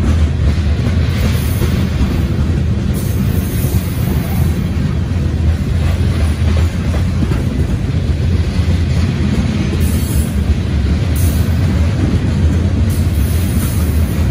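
Covered hopper cars of a CSX freight train rolling past close by: a loud, steady rumble and rattle of steel wheels on the rails.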